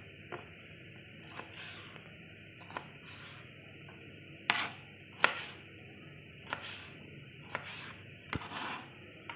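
Kitchen knife slicing a tomato into wedges on a cutting board: about nine sharp, irregular taps of the blade meeting the board, a second or so apart, some followed by a short slicing sound.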